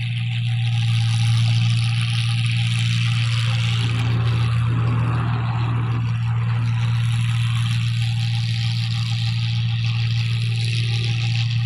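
New Holland 1545 combine harvester running steadily while harvesting rice: an even engine drone with a steady hiss of machinery above it.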